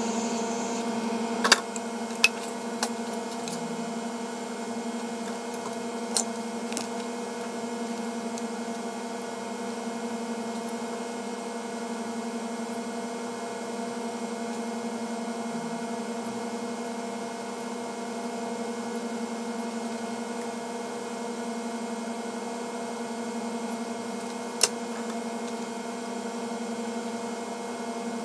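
Steady electrical hum from repair-bench equipment running during a capacitor swap on a laptop logic board. A few sharp clicks of small metal tools come in a cluster in the first several seconds and once more near the end.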